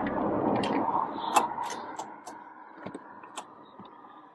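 Hands working a screw and the plastic interior trim: a rustling scrape that fades over the first two seconds or so, with scattered sharp clicks throughout.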